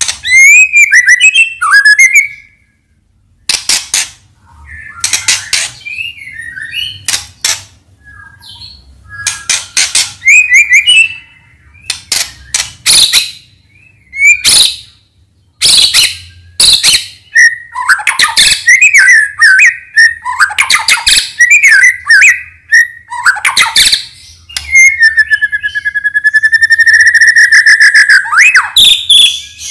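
White-rumped shama (Medan-type murai batu) in full song: rapid harsh, scratchy notes mixed with whistled, gliding phrases, and a long held whistle near the end.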